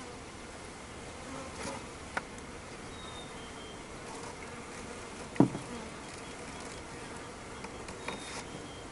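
Honey bees buzzing in a steady hum around a hive as a package colony is installed. A light click about two seconds in and one sharp knock about five and a half seconds in, the loudest sound.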